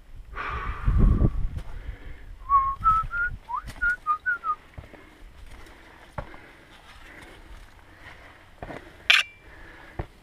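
A quick run of about eight short whistled notes, sliding up and down. It follows a brief rush of low noise at the start, and a single sharp click comes near the end.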